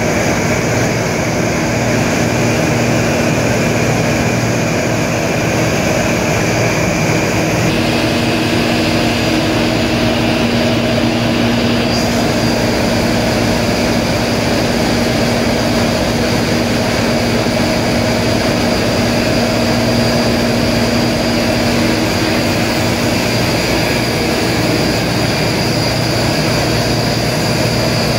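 Steady, loud machinery noise of a ship's engine room, with several steady hums and a high whine running through it. The mix of tones shifts slightly about eight seconds in and again about twelve seconds in.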